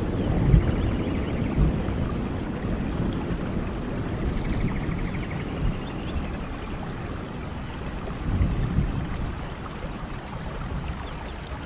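Steady rain with low rumbles of thunder that die away over the first seconds and swell briefly again late on. Short trilled animal calls, with small high chirps, repeat every couple of seconds over the rain.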